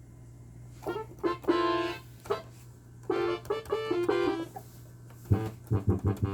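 FM synthesizer app emulating the Yamaha DX7, running on an iPad and played from a small keyboard: three short phrases of notes with pauses between them, over a steady low hum.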